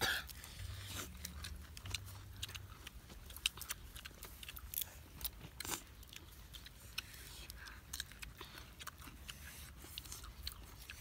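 Close-up eating sounds: grilled clam shells clicking as they are picked apart by hand, and chewing, with many short sharp clicks scattered throughout.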